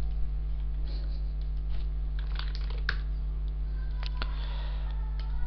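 Computer keyboard typing and scattered clicks, irregular and bunched into a few short runs, over a steady low electrical hum.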